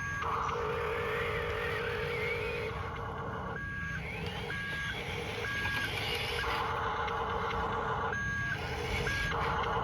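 A radio-controlled toy construction vehicle's reversing beeper sounding about once a second, over the steady whir of its motors and gears.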